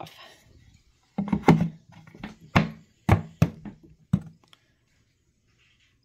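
Wooden observation door of a cedar beehive being fitted back over its window: about seven sharp knocks and thunks of wood on wood between one and four seconds in.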